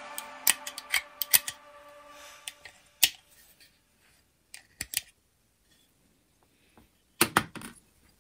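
Sharp little clicks and taps of metal and plastic parts being handled: the wire clamp lever and clamps on a Makita DBO380Z sander's metal base plate. A few single clicks in the first seconds, a strong one at about three seconds, a couple around five, and a quick cluster near the end.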